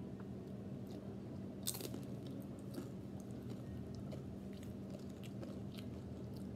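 A child chewing and biting crunchy food, with scattered small crunches and one sharper crunch a little under two seconds in.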